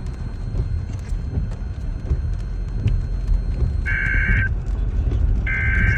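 NOAA Weather Radio Emergency Alert System broadcast over heavy low rumbling static. About four seconds in comes a short, harsh two-tone digital screech: the SAME header data burst that encodes the alert. A second burst of the same screech starts a second or so later.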